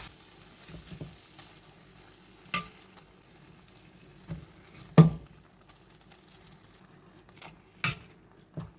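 A utensil mashing soft boiled pumpkin into a puree in a heavy-bottomed pan. There are scattered knocks against the pan, the loudest about halfway through, and soft stirring in between.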